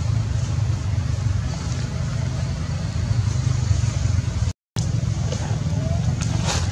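Steady low rumbling noise that drops out for a split second about two-thirds of the way through.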